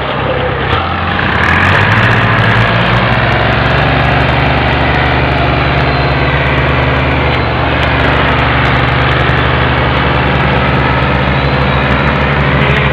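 Diesel tractor engine running hard under load, pulling a trolley heavily loaded with sugarcane. The revs rise about a second in, then hold steady.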